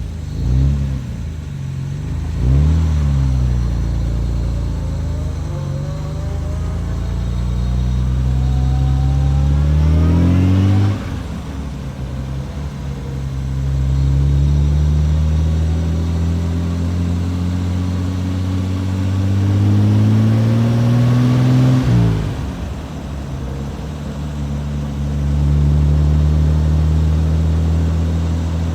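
Austin-Healey 3000 Mk III's straight-six engine pulling through the gears. A couple of quick revs at the start, then the note rises steadily and drops abruptly at an upshift about eleven seconds in. It climbs again to a second shift about twenty-two seconds in, then runs steadily.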